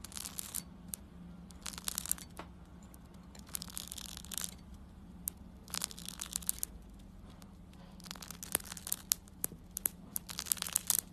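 A thin blade slicing through black hook-and-loop (Velcro) fastener, the nylon fibres snapping in short crackling bursts every second or two over a faint steady hum.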